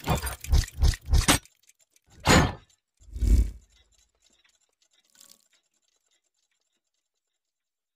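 Logo-animation sound effects: a quick run of metallic clicks and clanks as clockwork gears lock together, then two heavier swooshing hits about two and three seconds in.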